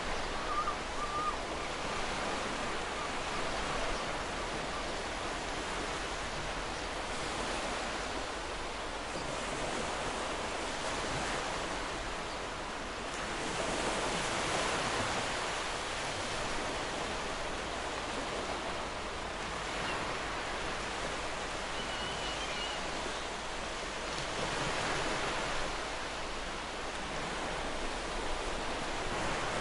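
Sea waves breaking and washing on a shore in a continuous rush that swells and eases every five or six seconds.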